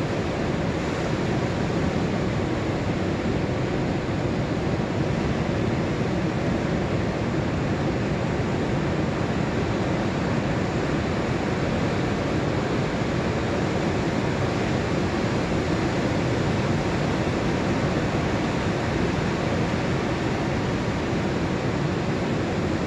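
Pacific Ocean surf breaking offshore and washing up a sandy beach on an incoming tide: a steady, unbroken wash of churning waves.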